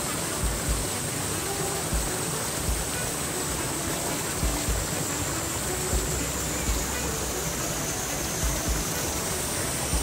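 Steady rush of a shallow mountain stream flowing over rocks, with occasional low thumps.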